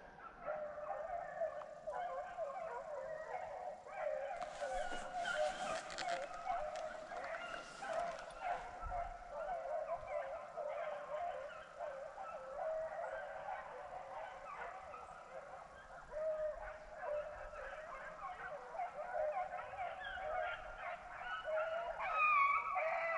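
A pack of beagles baying together on a rabbit's trail, many hound voices overlapping in an unbroken chorus.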